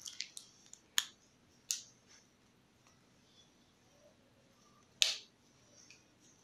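Hands working a girl's braided hair, with a few sharp snaps: a quick cluster at the start, two stronger ones about a second and just under two seconds in, and the loudest about five seconds in.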